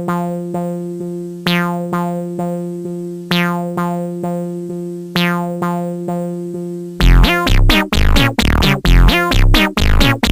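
Electronic background music: repeated sustained synthesizer notes, then about seven seconds in a loud beat with heavy bass kicks in.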